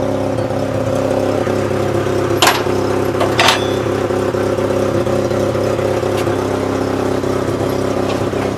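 An engine running steadily, with two sharp knocks about a second apart a couple of seconds in.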